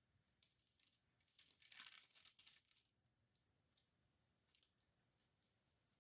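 Near silence with faint crinkling and rustling from hands handling craft materials, loudest about two seconds in, followed by a couple of small ticks.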